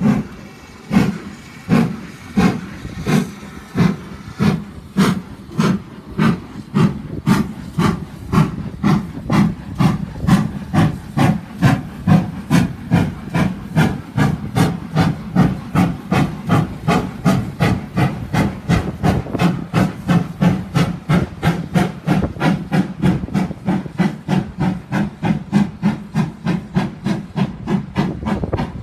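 GWR 7800 'Manor' class 4-6-0 steam locomotive chuffing as it pulls away with a train: sharp, regular exhaust beats, slow at first and quickening to about three a second as it gathers speed.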